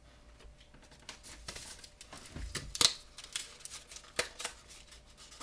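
Crinkling and tearing of a foil hockey card pack wrapper being handled and pulled open, a dense run of sharp rustles and snaps with the loudest snap near the middle.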